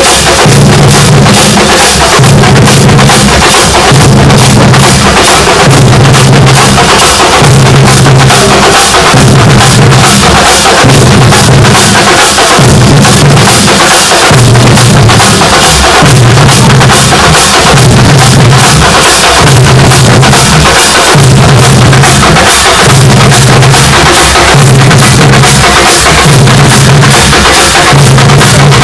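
A thambolam percussion band playing loud, fast massed drumming: bass drums and snare drums beat a dense, steady rhythm, with a low pulse repeating about once a second.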